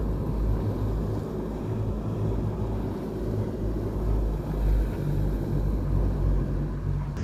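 Twin 150 hp outboard motors running steadily with the boat underway, a low drone mixed with the rush of the wake and wind buffeting the microphone.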